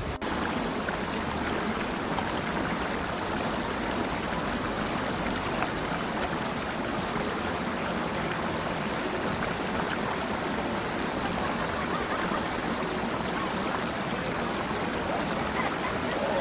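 Shallow river water rushing steadily over rocks in a riffle.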